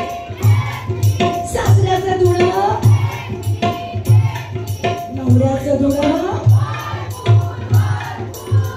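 Folk dance music: a steady drum beat about twice a second, with a melody line and some singing over it.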